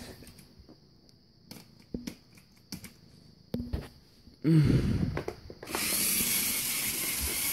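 A few light clicks, then a brief voice about four and a half seconds in, and from about six seconds in a steady high whirring hiss: a LEGO 9V train motor running along plastic track.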